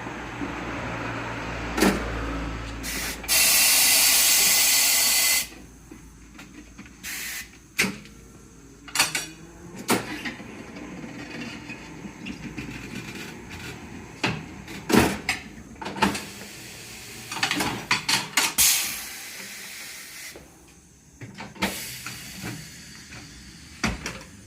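Compressed air hissing in two long blasts, among scattered sharp knocks and clanks of tyre-changing work on a 225/35R20 tyre.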